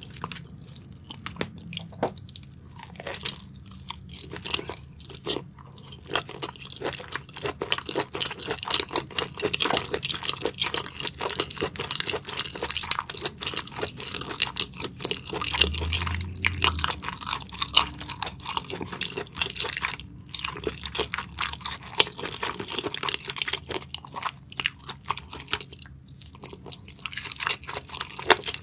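Close-miked chewing and biting of shellfish meat in spicy sauce: a dense, continuous run of small crunchy mouth clicks, busiest through the middle with a short pause about two-thirds of the way in.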